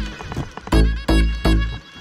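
Background music: an instrumental with strong pitched notes over a heavy bass beat, three hard strikes in quick succession about a second in.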